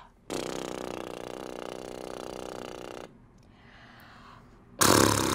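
A woman's lip buzz (lip trill): air pushed out from the stomach muscles makes her loosely closed lips flutter, held on one steady pitch for nearly three seconds. Near the end a louder, rough breathy sound starts.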